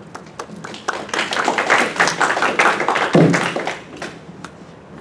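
Brief scattered applause from a small audience, a dense patter of hand claps lasting about three seconds. A low thump from the table microphone being handled a little after three seconds is the loudest moment.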